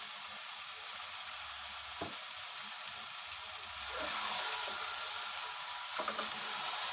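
Minced meat and okra sizzling in a metal pot on the stove, a steady hiss. From about four seconds in, a metal spatula stirs through the mix, scraping against the pot a few times, and the sizzle gets louder.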